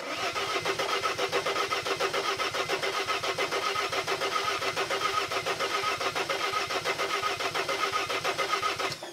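Dodge Sprinter diesel engine cranking on the starter motor with an even, rapid pulsing and not catching. The cranking stops near the end and the starter winds down.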